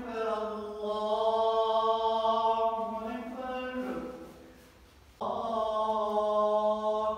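A man's voice chanting prayer recitation in long, held notes during congregational prayer. One phrase fades away about four and a half seconds in, and a second begins about a second later.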